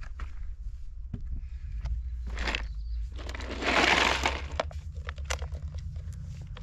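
Food being taken out of a cooler: a plastic bag crinkling loudly for about a second, about three seconds in, among scattered clicks and knocks of packages and the cooler being handled, over a low steady rumble.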